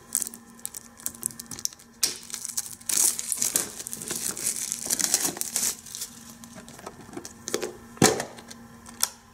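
Fingers picking at and peeling the plastic wrapping and seal off a clear plastic DVD case: crinkling and tearing plastic with many small scratchy clicks. Louder stretches of rustling come a few seconds in, and a sharp click sounds near the end.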